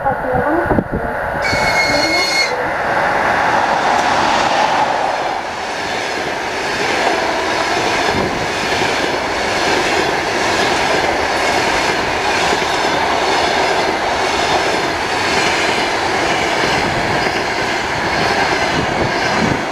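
EP20 electric locomotive sounding one short, high-pitched horn note about two seconds in, then its passenger train passing at speed: a steady rush of wheels on rails with rhythmic clicking of the wheels over the rail joints.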